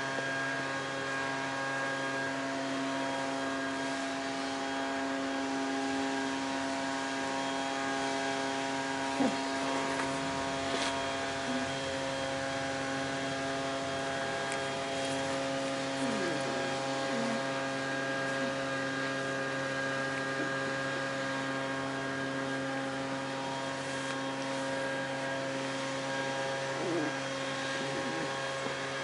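A steady hum at one unchanging pitch, with a few faint short squeaks over it around the middle and near the end.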